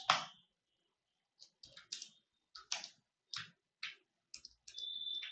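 Typing on a computer keyboard: about a dozen separate keystrokes at an uneven pace, tapping out a short line of text.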